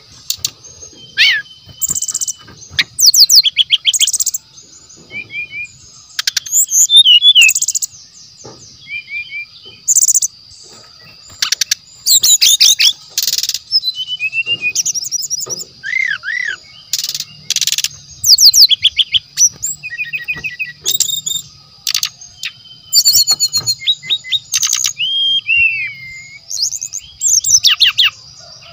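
Brown-chested jungle flycatcher singing a long, varied song of fast trills, sliding whistles and rapid chattering phrases, with short pauses between them, over a steady high-pitched whine.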